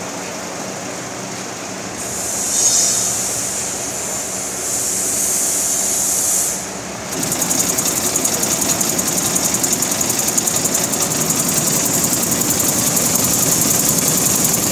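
Nut chopping machine running: a steady motor hum with rushes of hiss in the first half. From about seven seconds in comes a fast, even rattle of its vibrating grading sieves.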